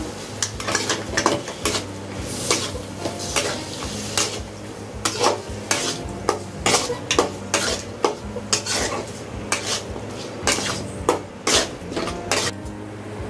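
Metal spatula scraping and clanking against an aluminium kadai as raw chicken pieces are stirred into fried onion masala, in irregular strokes a few times a second, over a light sizzle.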